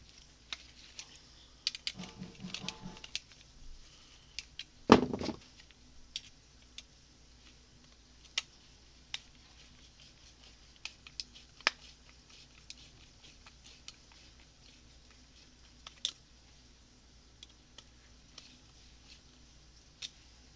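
Scattered small clicks and taps of a screwdriver and metal starter-motor parts being handled and fitted together, with a short rattle about two seconds in and one louder knock about five seconds in.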